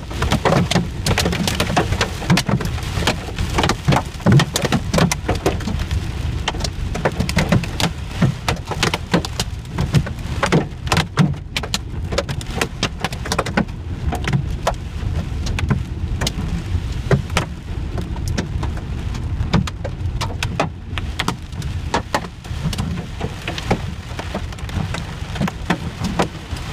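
Hailstones and heavy rain hitting a car's roof and windscreen, heard from inside the moving car as a dense, irregular clatter of sharp hits over a low road rumble. The hits thin out briefly about halfway.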